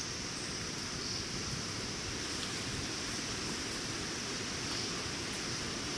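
Steady high-pitched drone of cicadas, with a low rumble beneath.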